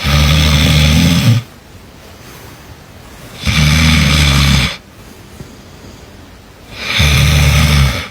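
A person snoring: three loud snores, each just over a second long, about three and a half seconds apart.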